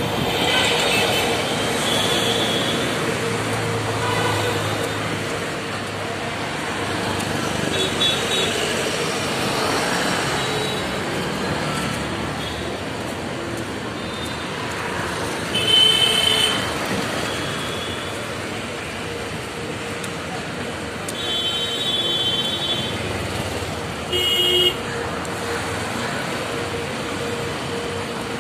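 City street traffic, with motorcycles, scooters and auto-rickshaws passing and vehicle horns tooting several times, the loudest about halfway through.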